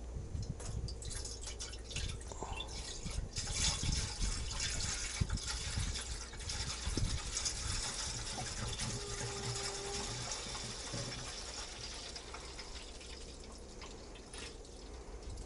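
Coolant poured from a plastic jug into a radiator filler neck: a steady splashing, gurgling trickle of liquid that swells a few seconds in and tapers off toward the end.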